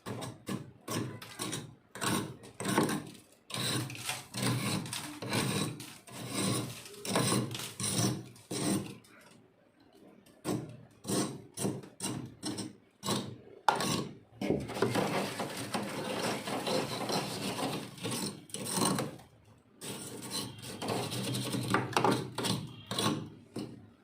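Freezer frost crunching and rasping in quick, irregular strokes, running into longer continuous rasps in the second half, with brief lulls twice.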